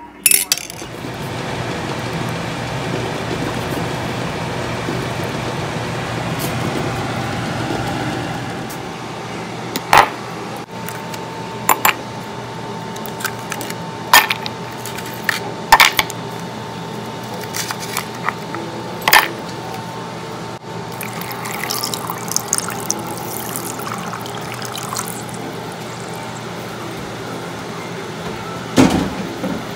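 Water running into a bowl for about eight seconds, then ice cubes dropped in, clinking sharply against the bowl several times.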